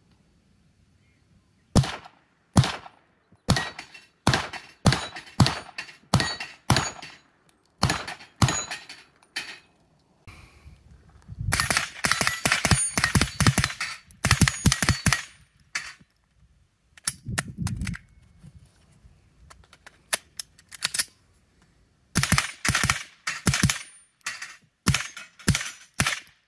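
AR-15 rifle firing semi-automatic strings of shots, about two a second, with a faster, denser run of shots in the middle and a pause of several seconds before the last string.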